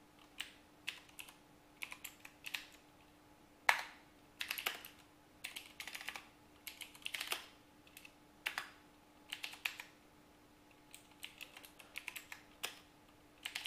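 Typing on a computer keyboard: quick runs of keystrokes broken by short pauses, with one sharper single keystroke about four seconds in. A faint steady hum lies underneath.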